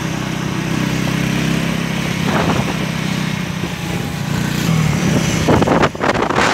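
Motorcycle engine running at a steady cruising speed, heard from the rider's seat. Wind buffeting the microphone grows loud about five and a half seconds in.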